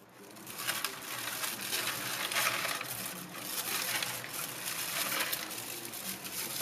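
Crushed ice crunching and clinking in a stainless steel tray as hands dig through it, with plastic wrap crinkling as a wrapped fish is pulled out near the end. The sound fades in over the first half second.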